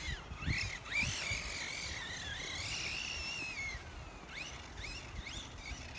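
Redcat Kaiju RC monster truck's brushless electric motor whining on a 4S battery, its pitch rising and falling with quick throttle blips, then a longer run for a couple of seconds that wavers and falls away, followed by more short blips.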